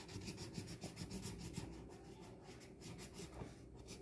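Quick back-and-forth strokes of a yellow colouring tool scratching on paper as a drawing is filled in.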